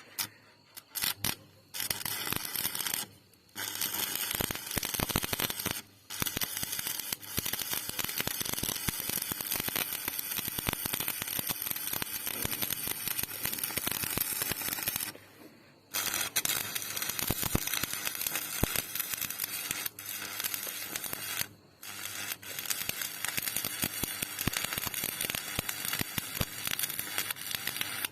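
Stick-welding arc crackling steadily as a bead is run, stopping briefly about four times and being struck again.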